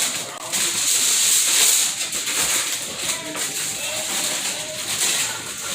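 Aluminium foil crinkling and rustling as it is handled around potatoes, a steady crackly hiss throughout.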